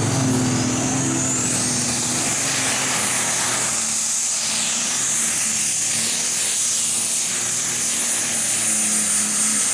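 Light modified pulling tractor under full load, pulling the sled down the track. Its engine gives a high whine that rises over the first two seconds and then holds steady, over a dense running noise.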